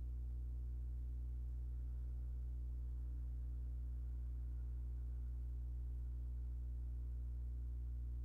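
A steady low hum with no other sound: the quiet room tone of a silent, seated meditation.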